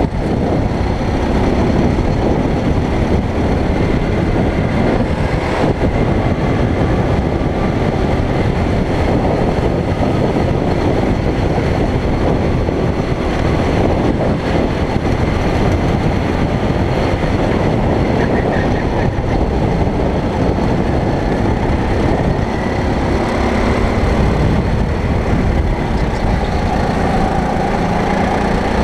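Racing kart engine running hard under an onboard microphone, its revs rising and falling through the corners over a dense, steady rumble.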